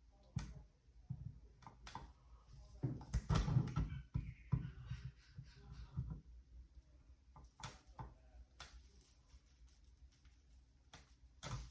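Scattered clicks and knocks from handling an old smoke alarm and pressing its test button, with no alarm beep sounding: the alarm is not working.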